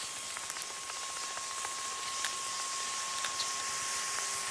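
Rain falling: a steady hiss with many small scattered patters of drops, and a thin steady tone running underneath.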